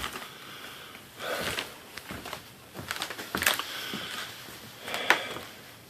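A few faint, scattered knocks and scuffs, about four over several seconds, over quiet room noise.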